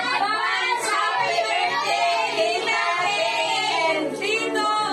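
A small group of women and children singing a birthday song together, unaccompanied.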